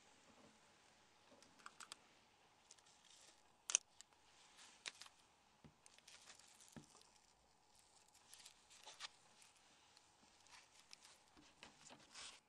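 Faint, scattered clicks and scratches of small plastic phone parts being handled and pried with tools, with one sharper click a little under four seconds in.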